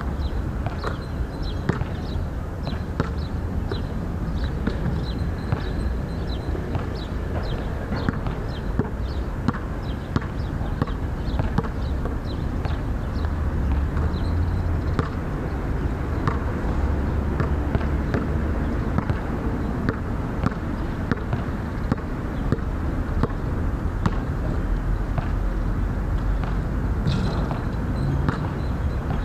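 Basketball bouncing and thudding on an outdoor hard court, with repeated short knocks through the stretch, over a steady low rumble.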